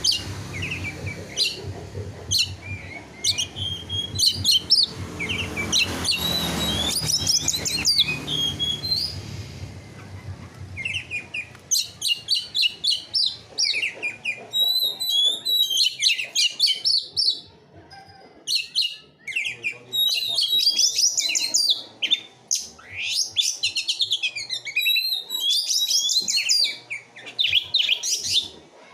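Caged songbirds singing: rapid, high chirps and trills in many short bursts, with a low rumble underneath for the first ten seconds or so.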